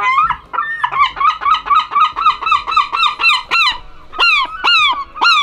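Herring gull calling: a rapid run of short yelping notes, about five a second, then three longer cries that leap up in pitch and slide down near the end.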